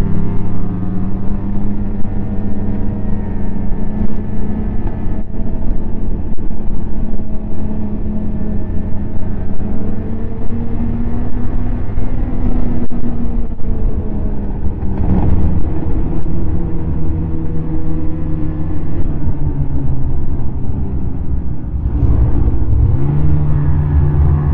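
Snowmobile engine running steadily while riding, its pitch drifting up and down with the throttle. Near the end it drops briefly, then picks up to a higher pitch.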